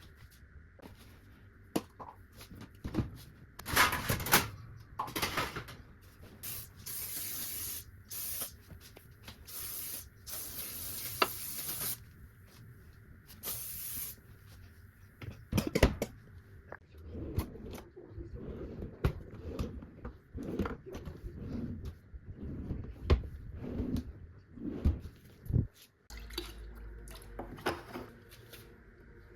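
A cleaning spray sprayed in a series of short hissing spurts, each lasting up to about a second. In the second half these give way to irregular knocks and clatter of things being handled.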